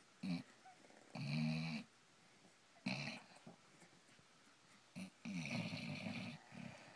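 Sleeping Basset hound snoring: a few short snorts and two longer snores, the second about a second long.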